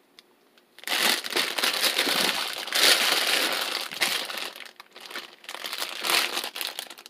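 Plastic bag crinkling loudly as soybean sprouts are pulled and shaken out of it into a mesh strainer. It starts about a second in, with a brief lull partway through before it resumes.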